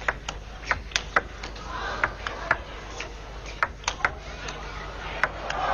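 Table tennis rally: the celluloid ball clicking sharply off bats and table in quick, irregular succession, over a faint crowd murmur.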